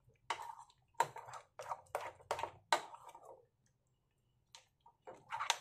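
A spoon beating thick besan (gram-flour) batter in a bowl, in quick separate strokes of about three a second. The beating pauses for about a second and a half midway, then starts again near the end.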